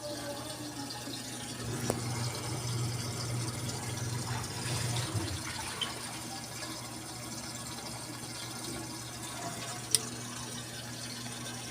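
Water rushing into the tub of a Whirlpool 8MWTW224WJM washing machine as it fills, over a steady low hum, with two sharp clicks, one about two seconds in and one near the end.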